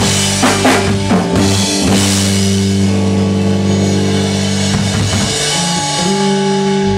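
Rock trio of electric guitar, electric bass and drum kit playing live. Drum hits come in the first two seconds, then guitar and bass notes are held for several seconds.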